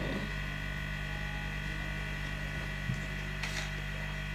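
Steady electrical hum and buzz, a low hum with a higher whine above it, with one brief hiss about three and a half seconds in.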